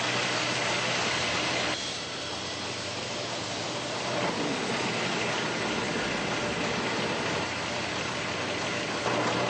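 Steady mechanical running, a constant low hum under a dense rushing noise, from fire engines and the blower filling an orange rescue jump cushion. The sound shifts slightly about two seconds in and again near the end.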